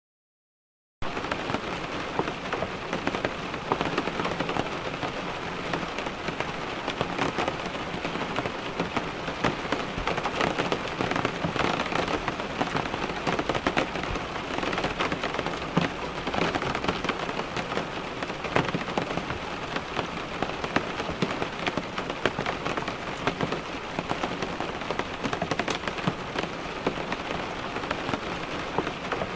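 Rain falling on a car window: a steady wash of rain with many individual drops ticking against the glass, starting about a second in.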